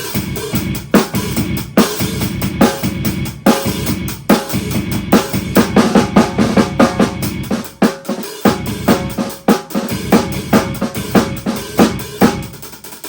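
An old acoustic drum kit played solo in a busy pattern of bass drum and snare hits, with a brief break about eight seconds in.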